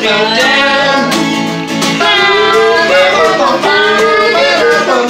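Acoustic guitar and ukulele strummed together with singing voices, a woman's among them, in an informal sing-along.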